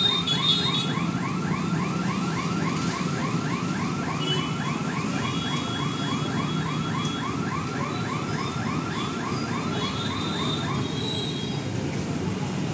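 Electronic warning hooter at a railway level crossing, a repeating chirp about four times a second that sounds while the boom barrier moves and stops about eleven seconds in. Underneath is the steady running of motorcycle and auto-rickshaw engines crossing the line.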